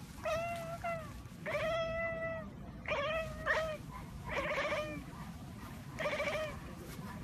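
A kitten meowing over and over: about seven high, even-pitched meows with short pauses between, the longest lasting about a second.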